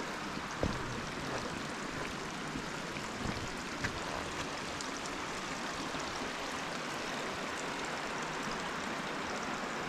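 Steady rush of a creek and falling water, with a few faint clicks over it.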